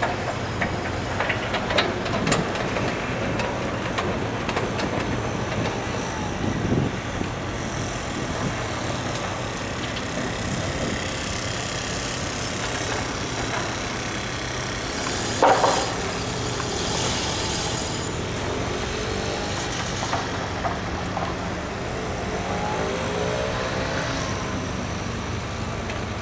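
Construction-site machinery: heavy engines running steadily, with scattered knocks and clanks and one louder clatter about fifteen seconds in.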